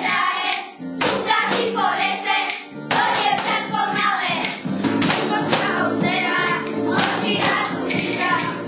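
A group of voices singing a song over instrumental music, with clapping on a beat about once a second.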